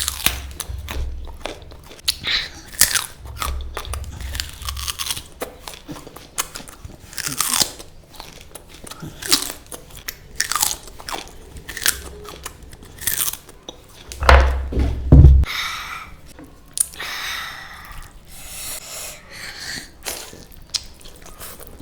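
A person eating close to the microphone: wet chewing with irregular crisp crunches and biting clicks. About 14 seconds in, a louder low thump comes with a crunch, lasting about a second.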